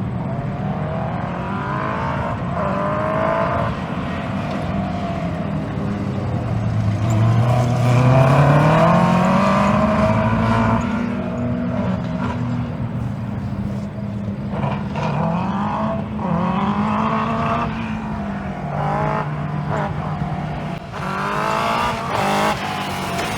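The 2001 Yamaha R1's inline-four motorcycle engine in a dwarf race car, revving up and falling back again and again through an autocross run. There are brief stutters and drop-outs in the pull, from the engine misfiring.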